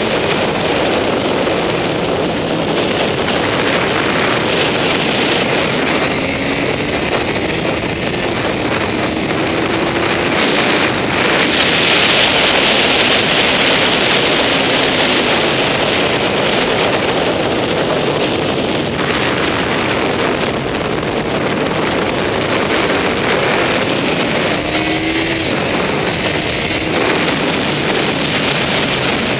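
Honda CBR954RR's inline-four engine at track speed, heard through heavy wind rush on the onboard microphone. The engine's pitch rises and falls faintly under the wind, and the rush is loudest about twelve to eighteen seconds in.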